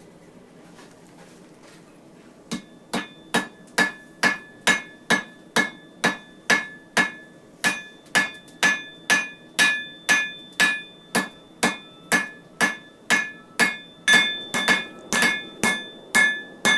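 Hand hammer striking hot forge-welded wire rope steel on an anvil. The blows start a couple of seconds in and come about two a second, each with a ringing note. Near the end they come quicker, with lighter strikes between them.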